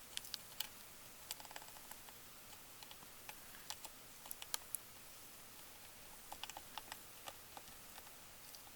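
Faint, irregular light clicks and taps of small hand tools being handled and set down while a circuit board is cleaned.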